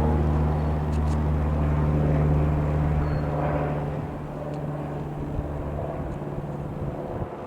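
Robin DR.400-180 light aircraft's four-cylinder piston engine and propeller passing overhead with a steady drone that fades away after about four seconds.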